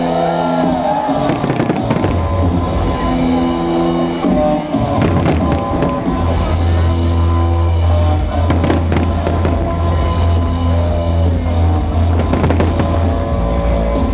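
Aerial fireworks going off in repeated bangs and crackles over music, with a deep note held through much of the second half.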